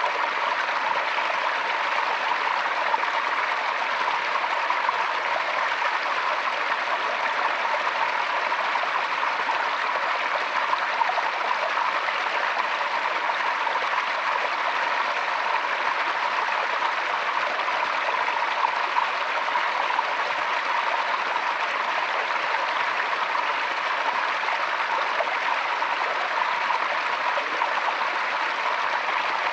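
Forest stream running over rocks: a steady, even babble and rush of flowing water with no breaks.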